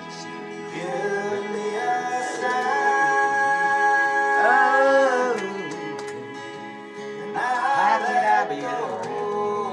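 A man singing loudly along with recorded music, holding a long note that wavers at its end, then starting a second phrase after a short pause.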